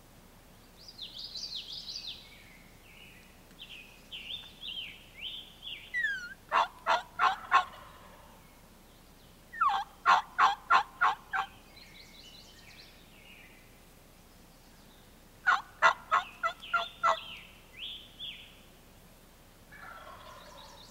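A wild turkey tom gobbles three times, each gobble a quick loud rattle of notes, with the second following about three seconds after the first and the third some five seconds later. A small bird sings high, falling chirps in between.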